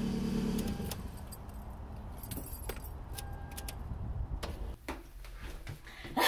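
Car keys jangling and clicking at the car, with a short electronic beep in the middle. A steady hum from the car stops within the first second.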